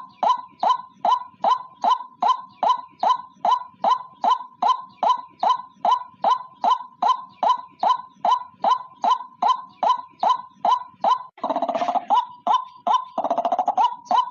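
White-breasted waterhen calling: a fast, steady series of short, loud notes, about three a second. Twice near the end the series gives way to a longer, harsh, rasping call.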